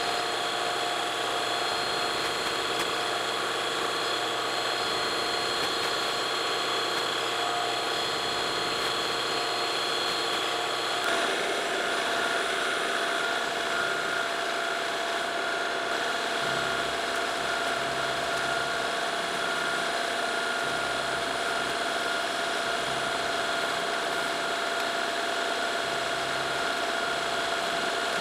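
Milling machine running with a keyway cutter cutting a slot into a steel rebar rifle barrel: a steady mechanical whine with several high tones over a low hum. The pitch of the tones shifts once, about eleven seconds in.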